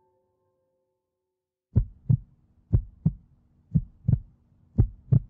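Heartbeat sound effect. Nearly two seconds of silence, then slow double thumps (lub-dub) about once a second, four beats in all, over a low steady hum.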